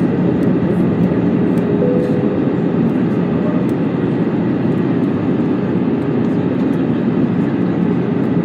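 Steady cabin noise of an Airbus A320 descending on approach, heard from a window seat over the wing: the even rush of airflow and the engines' low drone, with a faint steady hum running under it.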